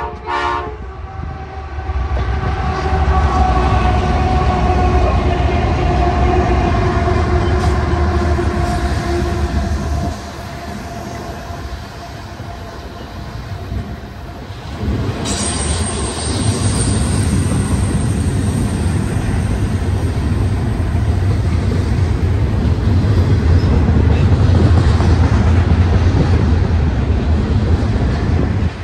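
Westbound double-stack container train with Norfolk Southern diesel locomotives leading, passing close by. A horn blast cuts off in the first half-second. The locomotives' engines then drone past, their tones sinking slowly in pitch over a heavy low rumble, and then the loaded well cars rumble and clatter by on the rails.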